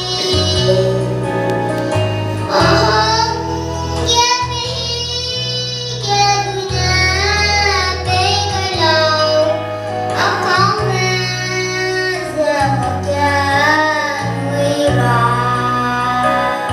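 A young girl singing a song into a microphone, with electronic keyboard accompaniment holding sustained bass notes that change every second or two beneath her voice.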